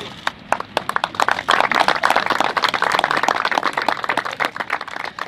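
A group of people applauding: many quick overlapping claps that start just after the opening, grow densest in the middle and thin out near the end.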